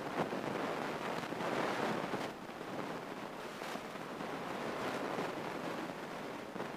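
Steady rushing cabin noise of a Grumman single-engine light airplane in level flight: engine and airflow blended into an even hiss, with no distinct engine tone.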